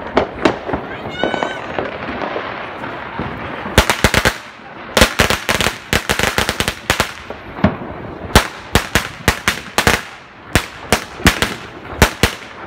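Firecrackers going off in quick strings of sharp cracks. A dense run starts about four seconds in and more volleys follow from about eight seconds in.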